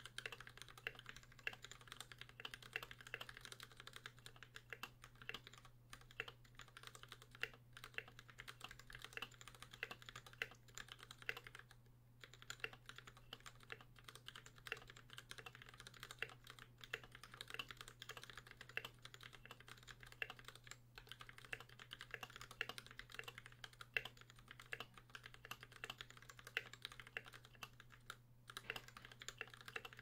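Continuous typing on an Idobao ID80 mechanical keyboard fitted with stock pre-lubed Gateron Cap Yellow linear switches and cubic keycaps. It is a quiet, rapid, irregular stream of key clacks, with occasional louder strokes.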